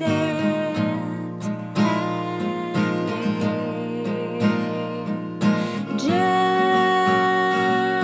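Background music: an acoustic guitar song, strummed and plucked, with a long held note coming in about six seconds in.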